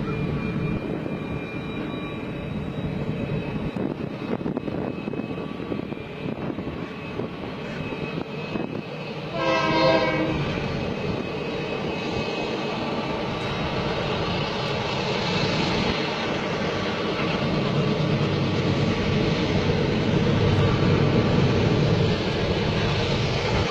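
A train running on rails with a steady rumble that grows louder in the second half. A short train horn blast sounds about ten seconds in.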